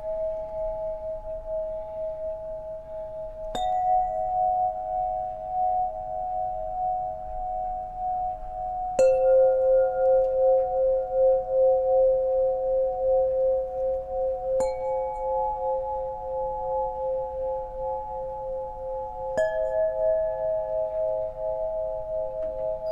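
Solfeggio tuning pipes struck one at a time: four strikes about five seconds apart, each a different pitch that rings on long and overlaps the last, with a slow wavering pulse in the tone.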